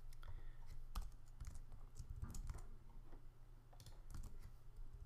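Computer keyboard typing: irregular key clicks as code is edited, over a low steady hum.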